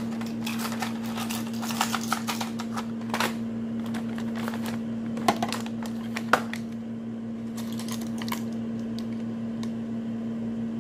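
Small cardboard medicine boxes being rummaged for and handled: a quick run of light clicks and rustles for the first few seconds, two sharper clicks about five and six seconds in, then only a few faint ticks. A steady low hum runs underneath.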